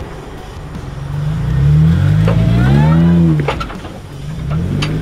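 Jeep engine revving up in a burst and dropping back, as in rock crawling, with a few sharp knocks.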